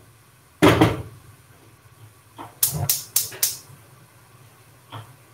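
A heavy pot of water is set down on a gas stove's grate with a single clunk. About two and a half seconds later the burner's igniter clicks four times in quick succession as the gas is lit.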